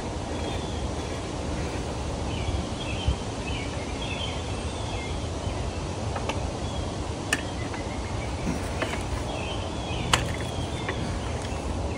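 Outdoor background of low wind rumble on the microphone with birds chirping, broken by a few sharp clicks, about three seconds in, after seven seconds and after ten.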